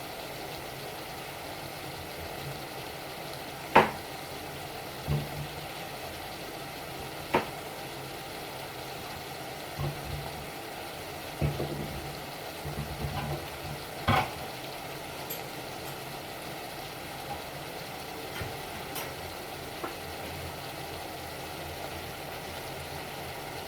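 Mixed vegetables frying in a pan with a steady sizzle, broken by occasional sharp knocks of a utensil against the pan as they are stirred.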